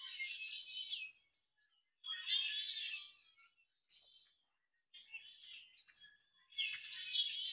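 Songbird singing high-pitched phrases about a second long, one every second or two, with short pauses between.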